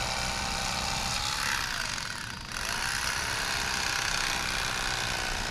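Rapala corded electric fillet knife running, its motor buzzing steadily as the reciprocating blades cut into a fish. A little past two seconds in, the motor's pitch sags and the sound dips briefly, then comes back up.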